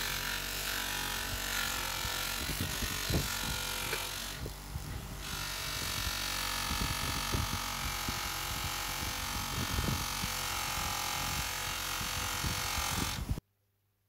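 Pro Work PD 150 bench grinder running with a buffing wheel, a small steel ferrule held against the wheel and polished, giving a steady motor hum and buffing hiss. The hiss thins briefly about four seconds in, and the sound cuts off suddenly near the end.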